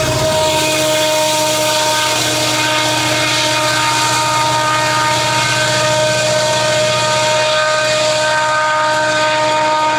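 Union Pacific diesel freight locomotive running at a steady engine pitch, a drone of held tones with a hiss over it.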